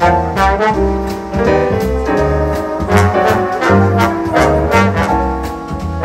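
A section of several trombones playing a jazz passage live, backed by double bass and drums keeping a steady beat.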